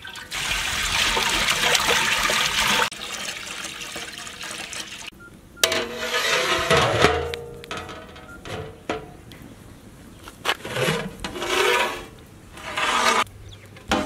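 Water pouring from a large plastic jar into a big aluminium cooking pot, a steady splashing pour that cuts off after about three seconds. It is followed by a sharp clank and ringing metal scraping, then several shorter noisy sounds.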